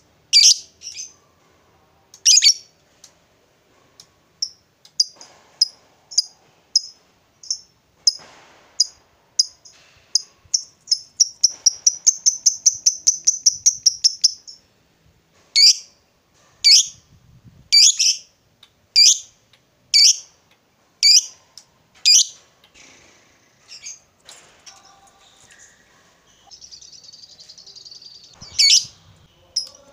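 Lovebird giving sharp, shrill calls about once a second, which quicken around ten seconds in into a fast chattering trill, the long "ngekek" that lovebird keepers prize. Single shrill calls resume afterwards, with a softer rapid chatter near the end.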